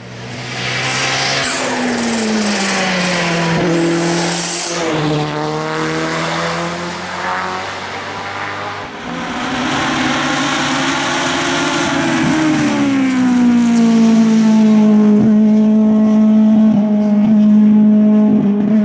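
Touring race car engine running hard at high revs, its pitch climbing and dropping with throttle and gear changes. The sound switches abruptly about nine seconds in, then holds a high steady pitch with a few sharp cracks near the end.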